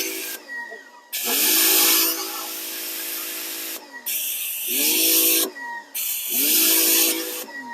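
Pressure washer spraying in short bursts, three times, stopping in between, with a rising hum as each burst starts.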